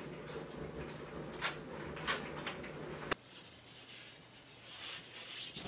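A few knocks and bumps from someone climbing up through a ceiling hatch into an attic, over a steady low hum. The hum stops abruptly about three seconds in, leaving fainter rustling.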